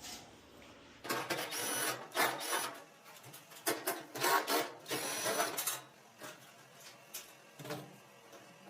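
Cordless drill-driver running in several short bursts, backing screws out of a dryer's cabinet panels; the bursts stop about six seconds in.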